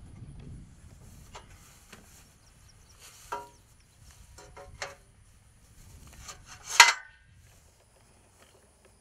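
Steel square-tube rails of a hay feeder knocking and clanking as they are handled in the grass: a few sharp metallic knocks, one ringing briefly about a third in, and the loudest ringing clank a little past two-thirds in.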